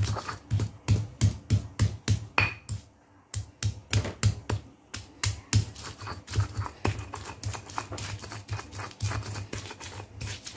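Stone pestle pounding spice paste in a stone mortar (ulekan and cobek): a rapid run of knocks, about three to four a second, with a brief pause about three seconds in.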